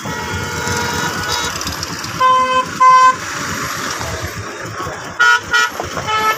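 Vehicle horns honking: two short toots a little over half a second apart, then three quicker toots near the end, over steady road noise.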